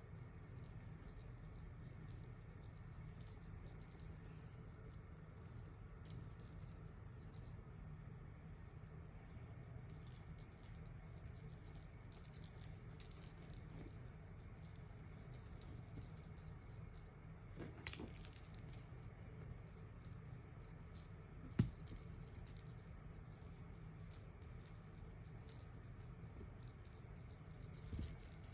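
Cat teaser toy jingling in irregular shakes, a small bell-like ringing, with a couple of soft knocks about two-thirds of the way in.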